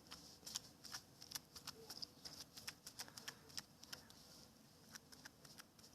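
Faint, irregular crackling clicks of crunchy slime being pressed and worked with a comb. They come several a second and thin out near the end.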